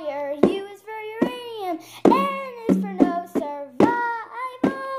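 A child singing a tune, syllable after syllable, the pitch gliding up and down.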